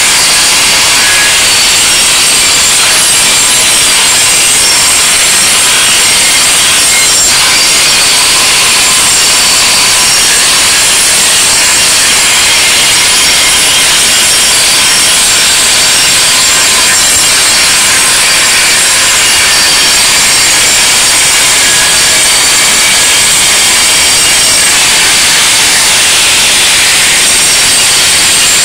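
Angle grinder with an abrasive disc running against steel fire escape stair treads, grinding off old paint and rust. A loud, steady, high-pitched grinding hiss.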